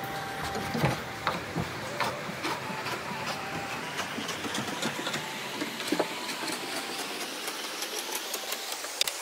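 Knife chopping onions and tomatoes on a cutting board: irregular sharp taps over a steady hiss, the loudest about a second in, around six seconds in and near the end.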